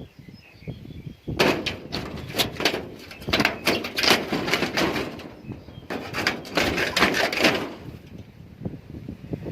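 Rapid, loud clattering and banging: dense runs of knocks and rattles starting about a second in and dying down near the end.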